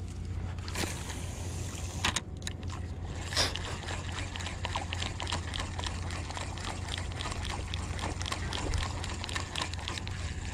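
Water sloshing and lapping at the shore, under a steady low rumble of wind on the microphone, with a run of small clicks and ticks.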